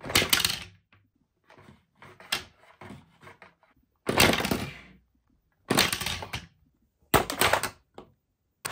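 Hard plastic parts of a Sonic the Hedgehog Giant Eggman Robot toy playset clattering and clacking as it is worked by hand, in about five short loud bursts with softer clicks between.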